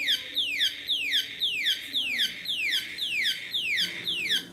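Electronic alarm-like sound: a falling whistle-like tone repeated about twice a second, stopping near the end.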